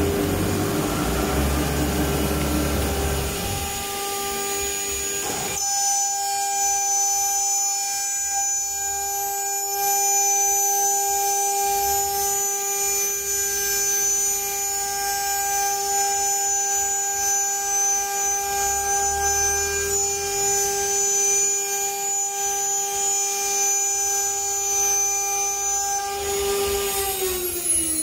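Spindle of an ATC CNC router running at high speed as it routes a door-panel profile in a wood board, a steady high whine made of several tones. Near the end the whine falls in pitch.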